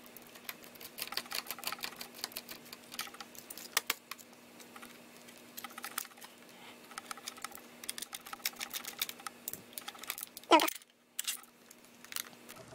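Small screwdriver working screws out of a plastic camera body, making clusters of rapid light clicks and rattles, with the camera being handled. One sharper, louder knock comes about ten and a half seconds in. A faint steady hum underneath stops near the end.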